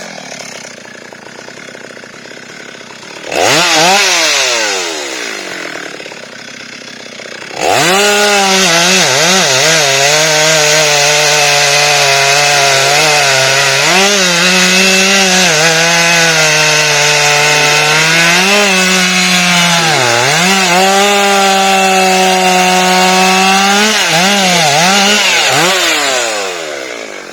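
Two-stroke chainsaw idling, blipped once, then held at full throttle through a long cut in a rubber tree trunk, its pitch dipping repeatedly as the chain bites, before dropping back to idle near the end.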